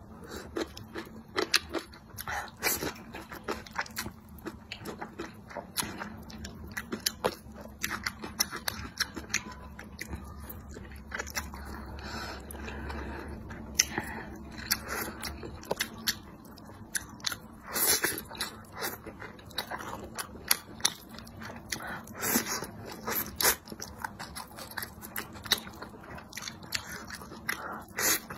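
Close-up eating sounds: a person slurping and chewing wide flat liangpi noodles in chili sauce, with many irregular wet smacks and clicks.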